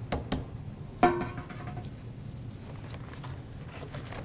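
A big mixing bowl being handled and set down on the counter: two light knocks, then a sharper clunk about a second in that leaves the bowl ringing briefly.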